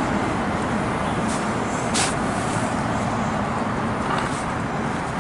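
Steady city street traffic noise, with a single light click about two seconds in.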